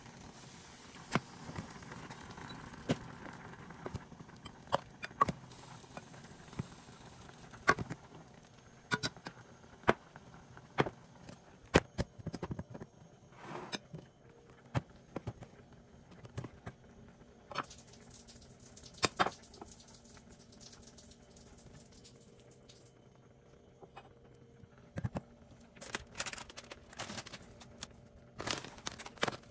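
Kitchen clatter: irregular sharp clicks and knocks, a few every couple of seconds, over a faint steady hum.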